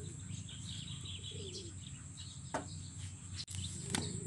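Birds chirping faintly over a steady low hum, with a few sharp clicks in the second half.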